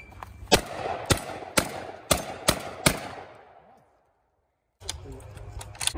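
A Beretta 1301 Comp Pro 12-gauge semi-automatic shotgun firing six shots in a fast string, about half a second apart. After a break, a further quick string of sharp cracks comes near the end.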